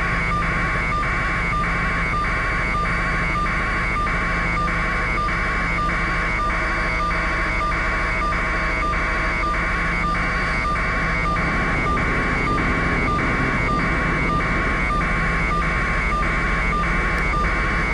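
Steady low drone of a news helicopter's airframe noise, with a hissing electronic tone that pulses on and off evenly, a little under twice a second.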